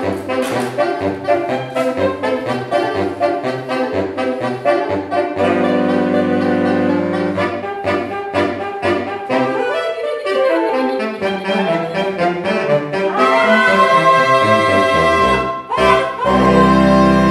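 Saxophones playing a jazzy passage: quick short notes at first, then held chords, a long downward slide in pitch about halfway through, and loud sustained low notes near the end.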